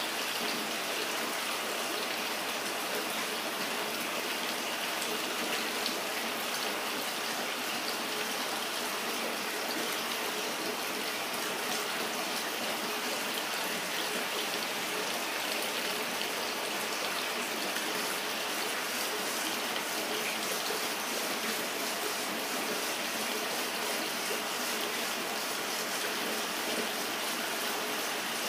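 Steady rush of running, splashing water, even and unbroken throughout.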